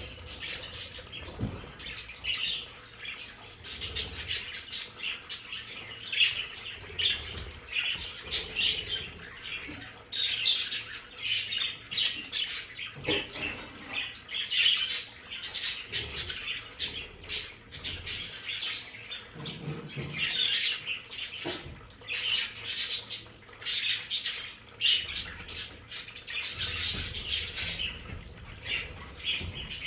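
A flock of budgerigars (budgies) chattering, with warbles, chirps and squawks overlapping without a break, and short sharp clicks mixed in.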